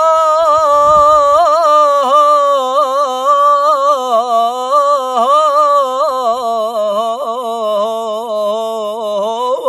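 A man singing one long unaccompanied melismatic note in Levantine mawwal/ataba style, the pitch wavering in quick vocal ornaments and settling lower near the end.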